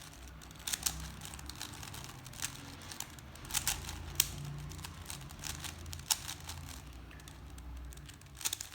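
A 3x3 Rubik's Cube being scrambled by hand: irregular plastic clicks and rattles as its layers are twisted.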